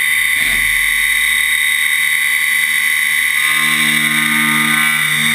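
CNC milling machine cutting a one-piece metal putter head, with a steady high spindle-and-cutter whine and coolant spray. A lower hum drops out near the start and comes back about three and a half seconds in.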